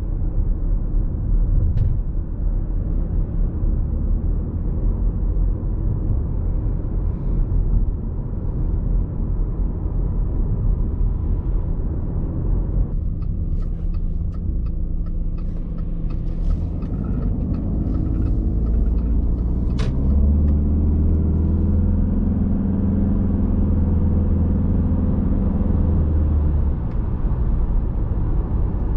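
A 2.0 TDI four-cylinder diesel engine in an Audi A6 and its road noise while driving, a steady low rumble. About two-thirds of the way in, the engine note rises and then holds at a steady drone for several seconds as the car accelerates, as a Multitronic CVT holds the revs, before easing off.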